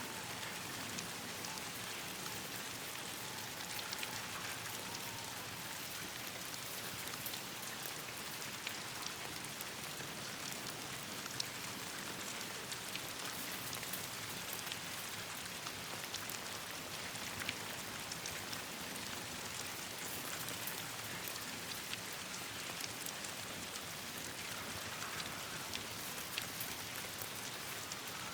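Steady rain falling on leaves and branches: a continuous hiss with scattered sharp ticks of individual drops.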